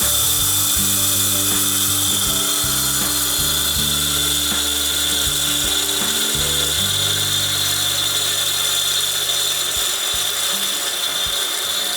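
Vtech 1 kg electric dry grinder running at full speed, grinding chana dal into powder: a loud, steady whine and hiss. Underneath is a rough, shifting low rumble as the lentils are broken up, which settles down near the end.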